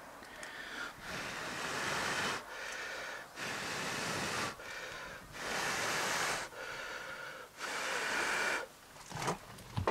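A man blowing hard on a smouldering paper wick to make it glow, about five long puffs of breath with short pauses between them. The wick is a starting wick that will be used to start an old tractor engine. A few sharp clicks come near the end.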